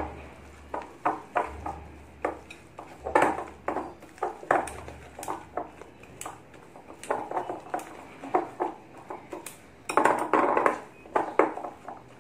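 Wire whisk beating thick cake batter in a glass bowl, clinking and scraping against the glass in quick, uneven strokes that come fastest and loudest near the end.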